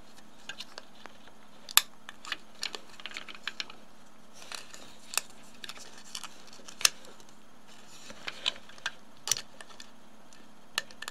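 Small irregular clicks and ticks of 35mm film and the plastic film puller being handled as the film leader is clipped on, in an Agfa Rondinax daylight developing tank, with a few sharper snaps among them.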